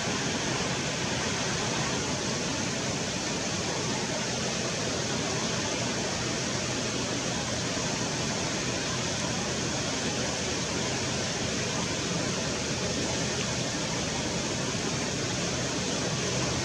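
Steady rushing of a shallow, fast-flowing river running over riffles.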